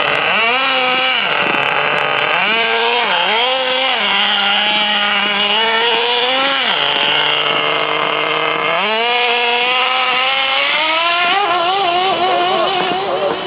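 Radio-controlled car's small engine running and revving, its pitch repeatedly climbing and dropping back. There are steady held stretches in the middle, a climb about nine seconds in, and a warbling, uneven run near the end.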